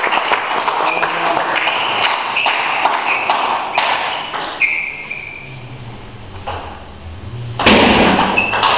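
Table tennis rally: a celluloid ball clicking sharply off the bats and table in quick alternation, about one hit every half to one second, with short high squeaks between strokes. The hitting stops after about four and a half seconds, and a loud noisy burst follows near the end.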